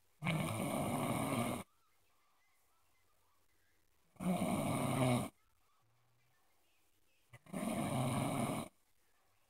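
Loud snoring: three long, rasping snores, each a little over a second, coming about every three and a half seconds with quiet breathing gaps between.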